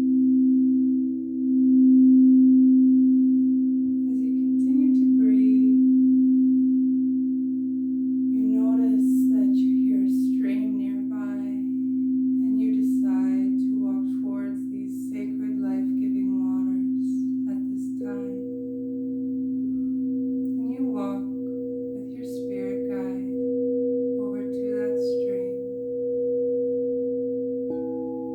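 Singing bowls sounding sustained, pure tones that slowly swell and fade in a wavering beat; a new, higher bowl tone joins about two-thirds of the way in and another right at the end. Soft wordless vocal sounds come and go over the drone through the middle.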